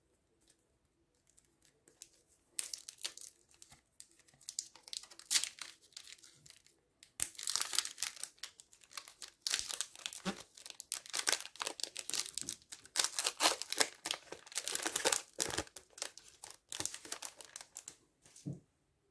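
A trading card pack wrapper being torn open and crinkled in the hands, in irregular bursts of crackling that get busier and louder about seven seconds in.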